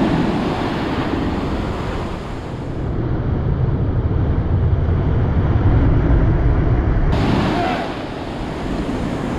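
Surf washing onto the shore, with wind buffeting the microphone; the low wind rumble is heaviest from about three to seven seconds in.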